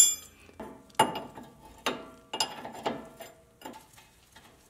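Irregular metallic clinks and knocks, about seven over four seconds, some ringing briefly, as a tie rod end removal tool and box wrench are worked loose on a Jeep's steering linkage after the rod-end stud has popped free of the pitman arm.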